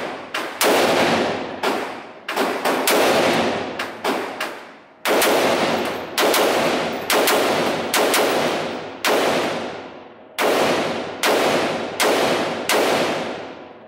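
Compact carbine fired as around twenty single semi-automatic shots at a steady pace, roughly one every two-thirds of a second. Each sharp crack rings out and fades in the echo of the indoor range.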